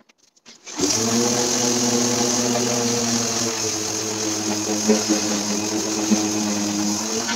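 A few short clicks, then a corded electric random orbital sander starts about a second in and runs steadily against a wooden cabinet door: a steady motor hum with the hiss of the pad on the wood.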